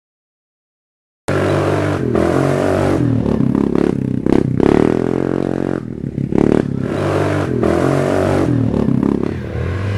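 Quad bike (ATV) engine revving hard under load. It cuts in suddenly about a second in, and its pitch rises and drops back several times as the throttle is opened and eased.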